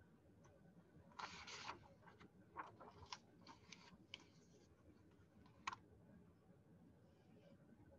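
Near silence with faint scattered clicks and a brief rustle near the microphone. The sharpest click comes a little before six seconds in.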